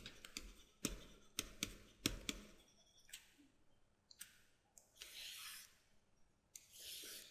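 Stylus on a pen tablet while handwriting: a run of light taps and clicks in the first couple of seconds as letters are written, then three short, faint scratchy strokes as lines are drawn.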